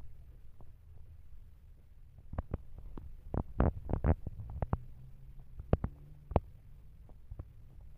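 Young kittens shifting and climbing over one another on fleece bedding: irregular soft knocks and rustling clicks, bunched together about halfway through and with two more a little later, over a low steady rumble.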